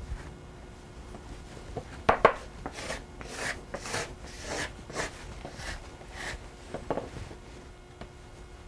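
Hands kneading potato gnocchi dough on a floured wooden board: a series of soft rubbing, pressing strokes, about two a second, starting about two seconds in and dying away a couple of seconds before the end.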